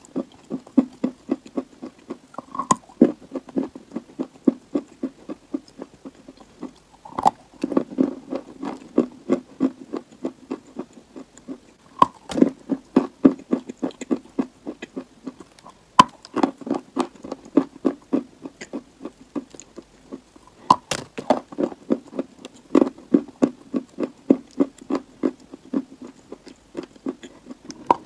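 Close-up chewing and crunching of a chunk of edible chalk clay: many quick crunches a second, with a louder, sharper bite every few seconds.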